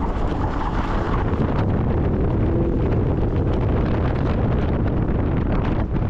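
Wind buffeting a camera microphone mounted on the outside of a car moving at speed, a steady low rumble, with the car's engine faintly audible underneath.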